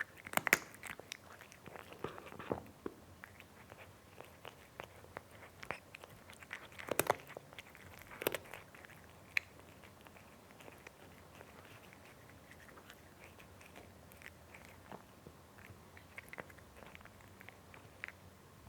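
A cat eating, with irregular wet chewing and crunching clicks, busiest in the first few seconds and again about seven and eight seconds in, then sparser and softer.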